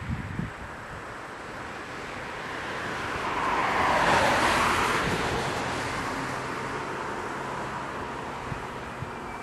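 A vehicle passing by on a road: its rushing noise swells to a peak about four seconds in, then slowly fades away.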